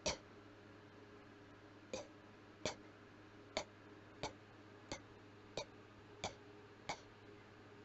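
A person coughing with the mouth closed: nine short coughs, one at the start and then, after a pause of nearly two seconds, eight more at a steady pace of about one every two-thirds of a second.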